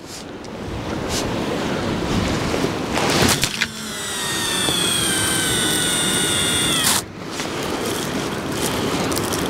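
An overhead cast with a long sea-fishing rod: a short swish about three seconds in, then line paying off the reel with a whine that slowly falls in pitch and cuts off suddenly about seven seconds in. A steady hiss runs underneath.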